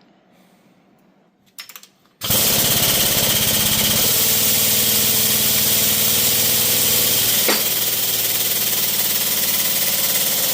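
A power tool starts about two seconds in and runs loud and steady with a fast hammering chatter, driving the shaft out of an M90 supercharger snout.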